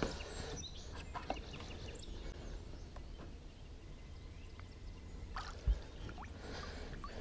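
Quiet on-the-water ambience with a few small clicks and knocks as a fishing rod is picked up off the boat deck, and one dull thump a little before six seconds in.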